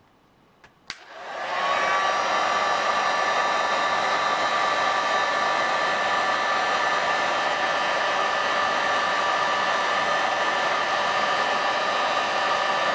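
Electric heat gun on setting 1 switched on with a click about a second in, its fan spinning up and then blowing steadily with a hiss and a whining hum, used to heat and bend felt.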